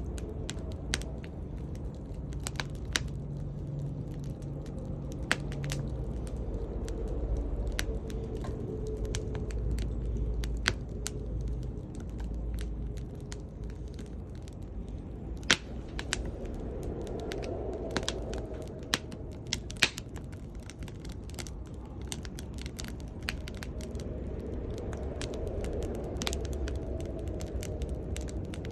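Small wood fire burning, crackling with irregular sharp pops over a low steady rumble.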